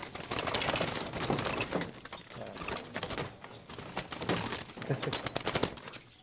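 Caged doves flapping and scrambling as a hand reaches in to catch one: wingbeats and rustling with irregular knocks and rattles against the wire-mesh cage.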